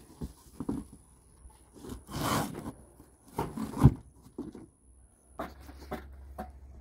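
A large cardboard sheet being handled and set against a wall: scraping, rubbing and crinkling, with a sharp thump about four seconds in. A low steady hum starts about a second and a half before the end.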